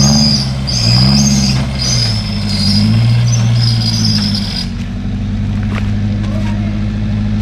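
Off-road 4x4's engine revving up and down several times as it drives through deep mud, with a high whine that follows the revs. After about four and a half seconds the whine stops and the engine holds a steadier note.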